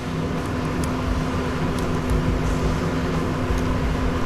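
Steady mechanical hum from a running machine in the workspace, with a few faint light ticks over it.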